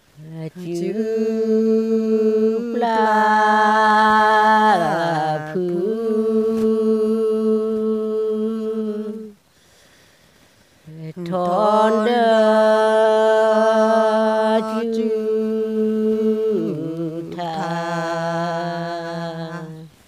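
A woman singing Karen hta, traditional chanted verse, with no accompaniment. She sings two long phrases of about nine seconds each, made of held notes that step up and down a little, with a short pause for breath between them.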